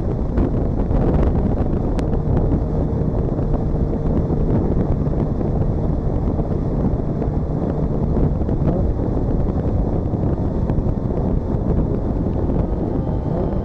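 Steady wind and road noise buffeting the microphone while a 2JZ-GTE-powered Lexus SC300 cruises at highway speed off boost, with a faint steady engine drone underneath.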